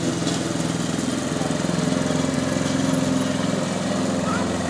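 Gasoline walk-behind lawn mower's small engine running at a steady speed as the mower is pushed across the lawn.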